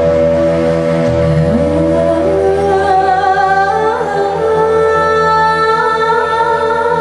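Slow ensemble music: a low sustained drone under long held sung notes, with a voice sliding up in pitch about a second in and higher held notes coming in from about two and a half seconds.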